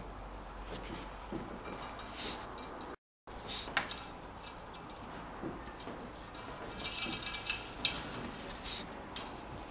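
Faint metallic clicks and rustling as an engine oil dipstick is handled and slid back into its tube, with a short cluster of sharper clicks about seven to eight seconds in.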